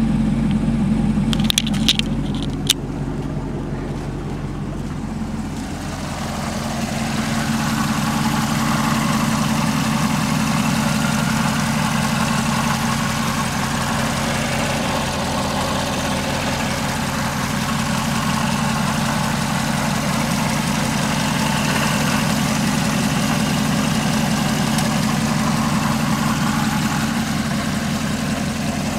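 Chevrolet 6.2 L LT4 supercharged V8 idling steadily. There are a few light clicks about two seconds in, and a brighter hiss joins the engine note from about six seconds in.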